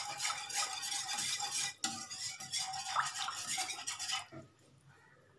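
Wire whisk scraping and clinking rapidly around a nonstick saucepan as it stirs milk into a flour-and-butter roux for white sauce, keeping lumps from forming. The whisking stops about four seconds in.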